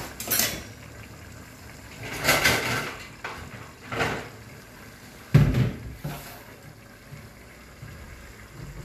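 Kitchen clatter of a cupboard door and dishes being handled: several separate knocks and rattles, the loudest a dull thump about five and a half seconds in.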